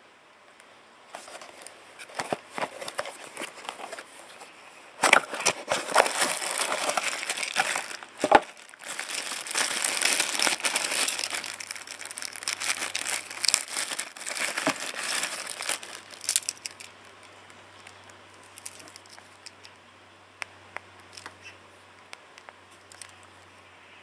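Clear plastic packaging bag crinkling and rustling as hands handle and open it, loudest through the middle, with scattered sharp clicks; the last several seconds hold only light ticks of handling.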